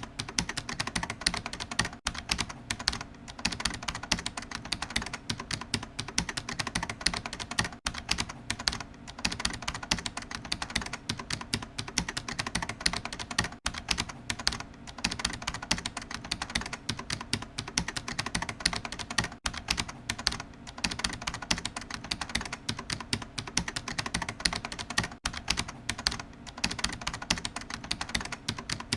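Computer keyboard being typed on continuously, a fast, dense run of key clicks.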